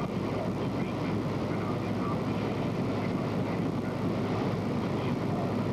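Steady engine and drive rumble of a moving military vehicle, heard from inside it.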